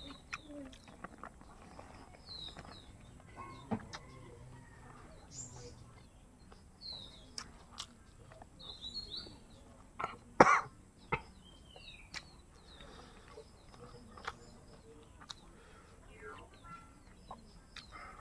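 Close-up eating sounds of a person eating rice and chicken innards by hand, with small clicks and smacks of chewing throughout, and one loud cough about ten seconds in. Birds chirp in the background.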